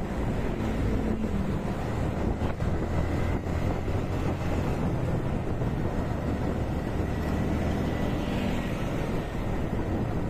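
A motorcycle engine running steadily at riding speed, with wind buffeting the microphone.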